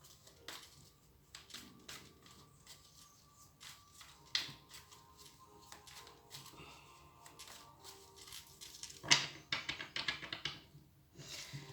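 Tarot cards being handled and shuffled: scattered sharp flicks and taps, then a quick run of rapid card snaps about nine seconds in. Faint background music underneath.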